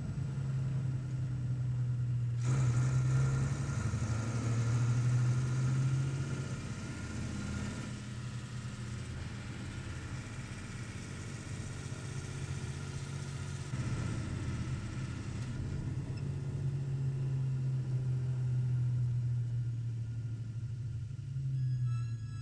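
Lorry engine running steadily at a low pitch, its level swelling and easing several times.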